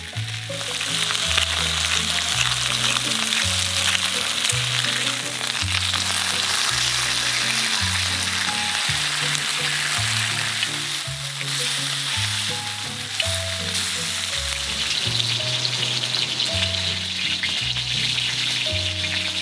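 Sliced pork sizzling steadily on a hot black griddle pan over a gas camping stove.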